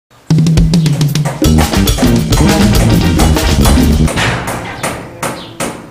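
Intro music with a heavy drum beat and a moving bass line, starting just after the opening and fading away over the last two seconds, with a couple of final drum hits.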